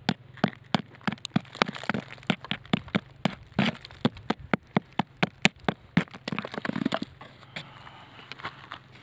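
Steel rock hammer striking and chipping into gravelly conglomerate rock, sharp taps about three a second. Around two-thirds of the way in the taps give way to a short stretch of crackly scraping and crumbling grit, then a few sparser taps.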